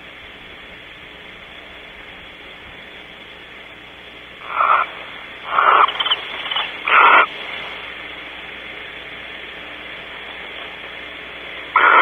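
Barn owl giving short screeches: a cluster of four about five to seven seconds in, the third fainter, and one more near the end, over a steady background hiss.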